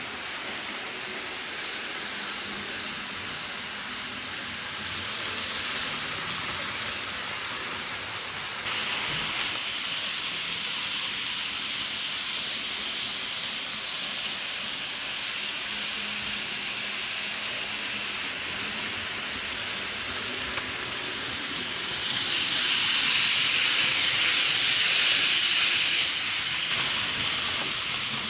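N-gauge model trains running on the track: a steady high-pitched whirring hiss from the motors and wheels. It grows louder for a few seconds near the end as a train passes close.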